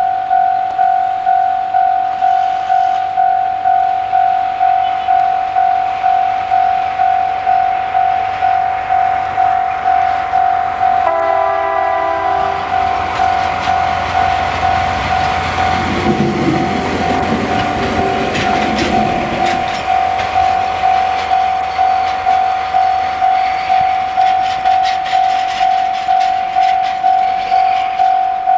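Japanese level crossing alarm ringing its electronic ding about twice a second throughout. About eleven seconds in, a Russell snowplow train's electronic horn sounds briefly, then the train runs over the crossing for several seconds with engine rumble and clicking wheels, before the crossing alarm is heard alone again.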